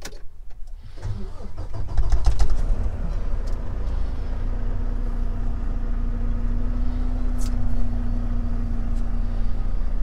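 Semi truck's diesel engine cranked by the starter and catching about two seconds in, then idling steadily, building air pressure in its emptied air tanks.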